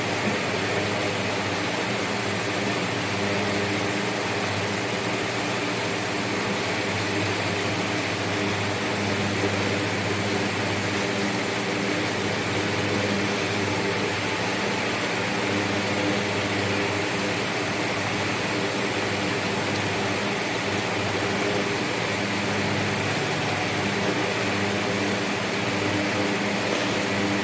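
Steady mechanical hum with a constant hiss, unchanging in pitch and level.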